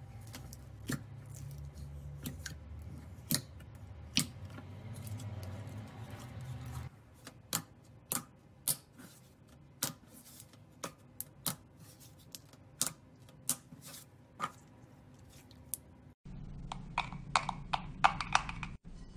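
Slime being poked, squeezed and pressed by hand, with sharp wet clicks and pops one or two a second. Near the end a glossy clear slime gives a denser run of crackling pops as it is worked.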